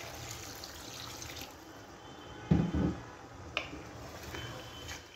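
Water being poured from a glass into a pot of browned chicken, potatoes and masala; the pour stops about one and a half seconds in. A short low thud follows about two and a half seconds in.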